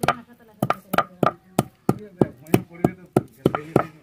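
Hand-held grinding stone striking a flat stone grinding slab over and over, crushing dried red chillies: sharp knocks about three a second, with a faint voice underneath.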